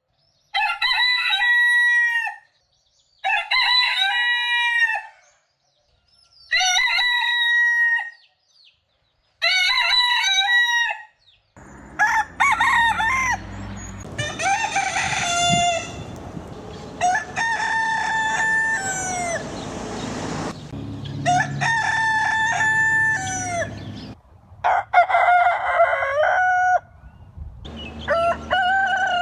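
Roosters crowing, one cock-a-doodle-doo after another, about ten crows of roughly two seconds each. The first four come with silence between them; from about a third of the way in the crows sound over a steady background noise.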